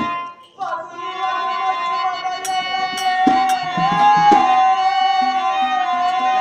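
Live folk-drama music: a singer holds one long note that bends slightly in pitch, with a few tabla strokes around the middle.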